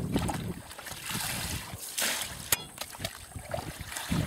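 Water splashing and trickling as crucian carp are scooped from a metal tub of rinse water and poured out, with a single sharp click about two and a half seconds in.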